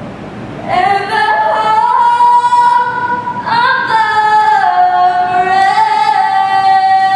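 Solo female voice singing two long held phrases, with a short breath between them.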